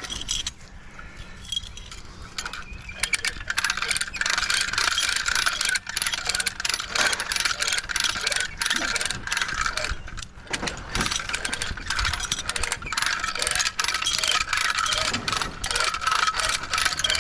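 Loose metal scrap rattling and clattering continuously over the low hum of a vehicle. The rattle sets in about three seconds in.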